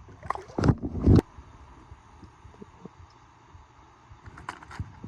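A few short knocks and handling sounds in the first second or so, the loudest a thud about a second in, then a quiet stretch with a faint low rumble and a few light ticks.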